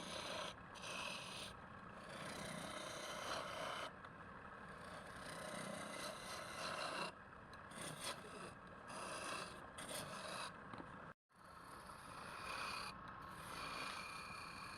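Turning tool scraping and cutting against wood spinning on a lathe, in uneven passes that swell and fade, with a brief total dropout about eleven seconds in.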